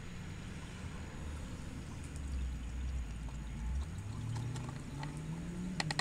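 Marvel Mystery Oil, an oil so thin it is like pouring water, being poured from its quart bottle into an engine's valve-cover oil filler. A low hollow tone rises in pitch through the second half, and a few light clicks come near the end.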